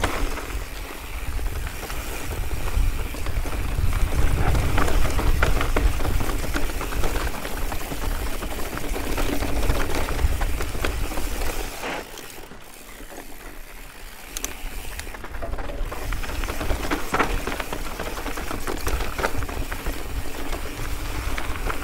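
Mountain bike rolling down a rocky trail: tyres crunching over loose rock with the frame and chain rattling, and wind rushing over the microphone. The noise eases off for a few seconds just past the middle, then picks up again.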